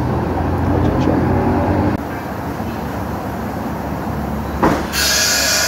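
A motor vehicle running in traffic, a steady low rumble. About two seconds in the sound changes abruptly. Near the end a sharp click is followed by a loud hiss lasting about a second.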